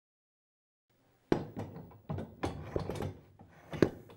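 Silence for about a second, then a run of knocks and clatter as a cart wheel's hub is slid onto a metal axle, with a sharp knock at the start and another loud one near the end.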